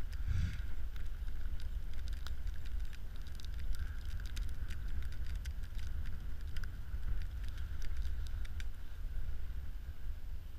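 Steady low wind rumble on the microphone, with many small scattered clicks and rustles as a hand-wound ice-fishing reel is turned to bring up the line and a perch is handled.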